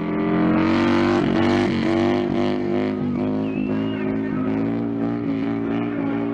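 Harley-Davidson motorcycle engine running at a nearly steady pitch, with a rushing noise over it in the first few seconds.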